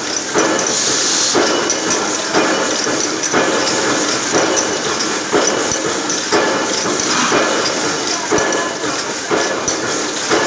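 Automatic BST trimming machine for aluminium aerosol cans running through its cycle: a burst of mechanical clatter, each starting with a click, repeating about once a second over a steady high hiss.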